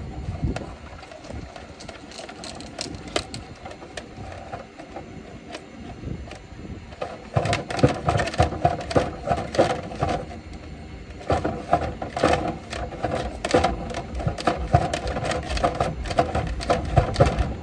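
Dryer vent cleaning brush rattling and scraping inside the vent duct, in rapid clattering runs that grow loud about seven seconds in, stop briefly, then carry on.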